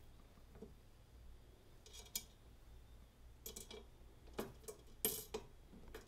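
Faint clinks and clicks of a steel bolt and washer being handled and set into a bolt hole in a plastic kayak deck: a handful of short taps, the loudest about five seconds in.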